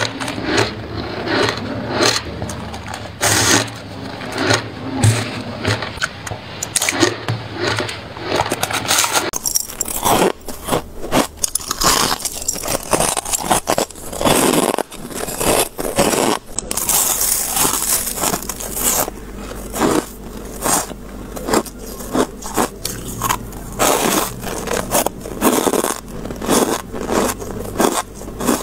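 Close-miked biting and chewing of soft white ice and freezer frost: many crisp crunches in quick, irregular succession, with scraping and crackling.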